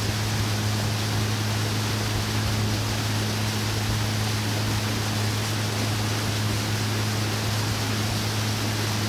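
Motorboat engine running at a steady cruising speed: a constant low drone under an even rushing hiss of water and air as the boat moves.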